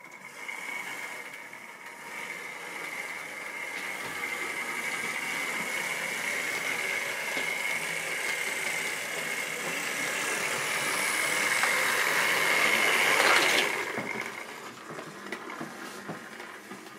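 Model railway locomotive running on the track: a steady high motor whine with wheel and rail rattle, growing louder as it approaches and then falling away sharply about thirteen and a half seconds in.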